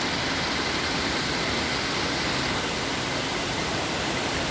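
A small waterfall rushing steadily over rocks.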